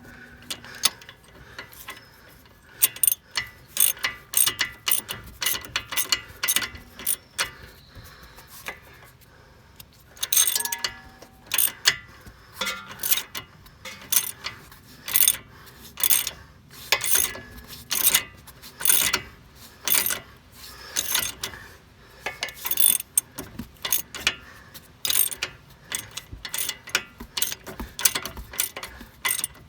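15mm ratchet wrench clicking in repeated back-and-forth strokes, with short pauses, as it runs a lock nut down onto a shock absorber's mounting stud.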